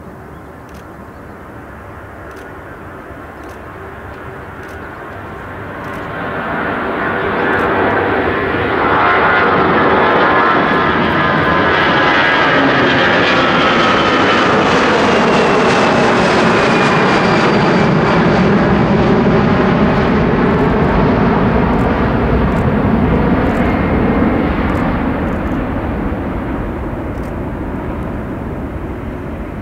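Airbus A340-300's four CFM56 turbofans at takeoff power as the airliner lifts off and climbs out, building from about six seconds in to a loud roar as it passes overhead. Fan whine falls in pitch as it goes by, and the roar eases as it climbs away.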